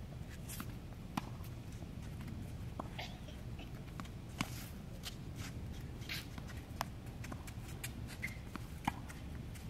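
Tennis balls struck by rackets and bouncing on a hard court: a string of sharp pops every second or two, over a low steady rumble.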